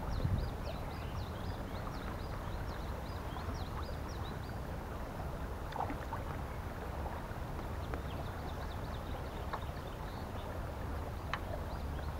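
Wind rumbling on the microphone, with a small songbird giving rapid series of short high chirps in three bursts: at the start, about two-thirds through, and again at the end.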